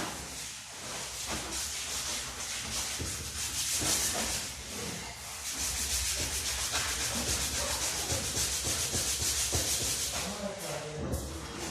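Sanding old paint off a wooden window panel: sandpaper rubbing over the wood in a continuous run of quick strokes.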